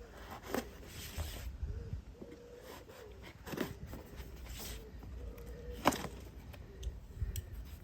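A cardboard box and its packaging being opened and handled by hand: scattered rustles, scrapes and light knocks, with one sharper click about six seconds in.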